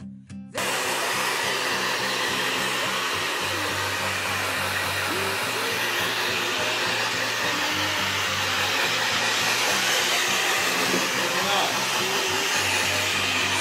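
Hand-held hair dryer blowing on a dog's coat: a steady rushing of air over a low hum that begins abruptly about half a second in.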